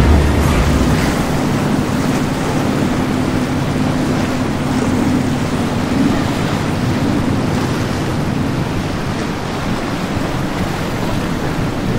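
Rushing water and wind on the microphone as a motor yacht runs past at speed throwing a big wake. A low, steady engine drone sits under the wash in the first half and fades out.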